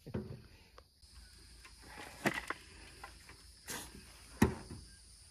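Shovel scooping soil from a pickup truck bed and tossing it into a wheelbarrow: soft scrapes and a few short knocks, the sharpest about four and a half seconds in.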